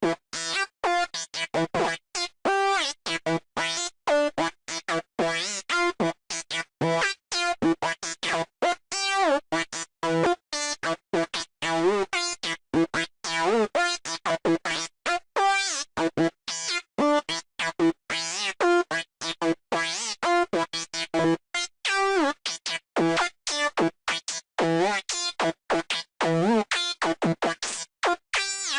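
Sylenth1 software synth playing a high-pitched psytrance night full-on lead: a fast run of short, choppy notes with quick pitch bends, with no drums behind it.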